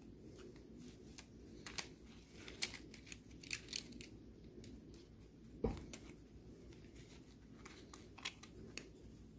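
Small plastic clicks, taps and rustles from handling a steering-column clock spring (airbag coil spring) as its flat ribbon cable and plastic cover disc are fitted together, with one louder knock a little over halfway through.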